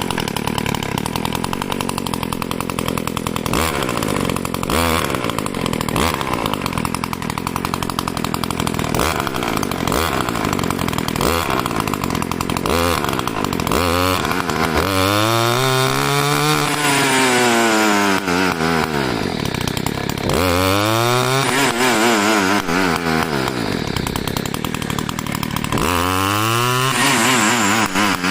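Two-stroke brush cutter engine breathing through a home-made expansion-chamber exhaust with its baffle fitted. It idles with a few short throttle blips, then is revved up and back down three times in the second half.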